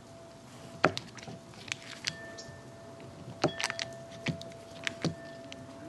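Kitchen knife slicing a stick of butter into pats on a plastic cutting board, the blade hitting the board in sharp, irregular clicks, about nine of them.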